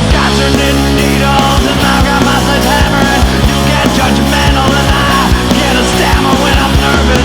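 Loud punk-rock band music with drums and guitars, playing an instrumental stretch without vocals.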